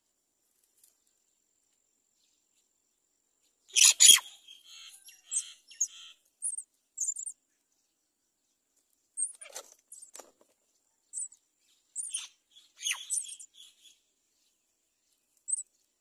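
Great myna nestlings giving high begging chirps in short, irregular bursts, starting with a loud, scratchy burst about four seconds in and fading out by a couple of seconds before the end, with one last chirp near the end.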